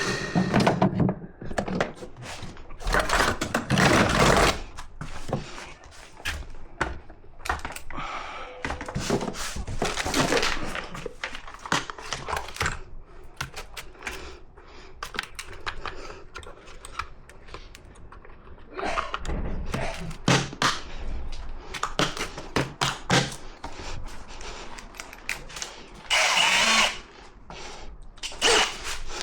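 Irregular knocks, clunks and clatter of tools and parts being handled during work, with a brief harsh burst of noise about 26 seconds in.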